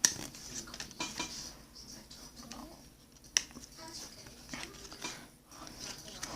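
Baseball cards being handled and flipped through: soft rustling and small clicks of card against card, with one sharp click about three and a half seconds in.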